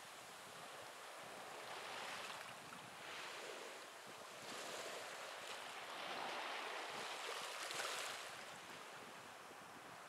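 Small sea waves washing up and back on a pebble beach, rising and falling in soft swells every second or two, the biggest about eight seconds in.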